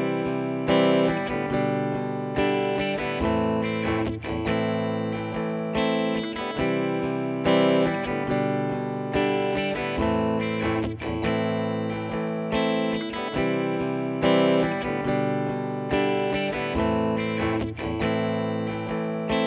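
Background music led by guitar, with notes struck at a steady pulse.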